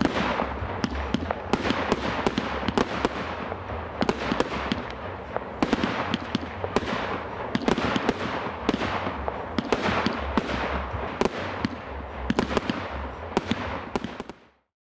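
Fireworks display: a continuous barrage of bangs, several a second, over a crackling haze, each bang echoing away. It cuts off suddenly near the end.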